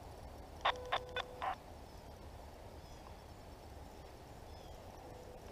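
Hunting hounds barking: four quick barks in a row about a second in.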